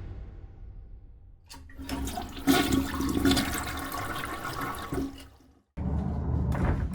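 A toilet flushing: water rushing with a steady hum for about four seconds, then stopping abruptly. Music fades out at the start, and a short low rumble follows after the flush.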